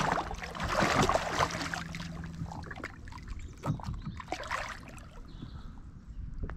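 A small hooked wels catfish thrashing and splashing at the water's surface beside a kayak as a gloved hand reaches in to grab it. The splashing is loudest in the first two seconds, then settles into a few small splashes and knocks.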